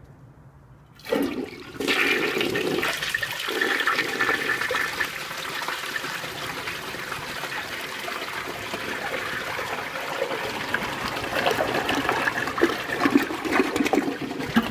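1960 Standard Cadet toilet with a 1987 Briggs conserver tank flushing. A sudden start about a second in is followed by a steady rush of water down the bowl, which grows louder and more uneven near the end.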